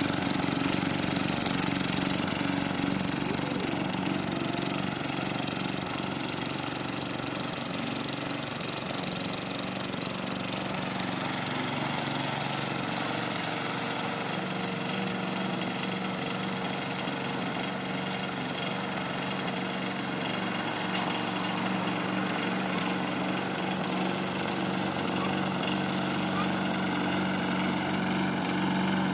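Craftsman walk-behind gas lawn mower engine running steadily while being pushed across the grass, fading a little during the first ten seconds or so as it moves away, then holding level.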